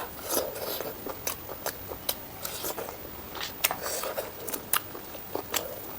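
A person eating close to the microphone: chewing, with many sharp wet mouth clicks and smacks scattered through.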